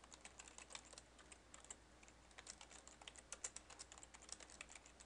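Faint, rapid, irregular clicking of a computer keyboard as a line of code is typed.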